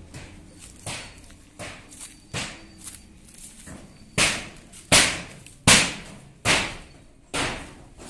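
Footsteps crunching at a walking pace, about one step every three-quarters of a second, louder from about halfway through.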